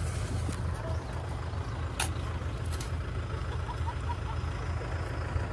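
Tractor engine running steadily, a continuous low rumble. Over it a shovel works soil, with a sharp knock about two seconds in and a fainter one soon after.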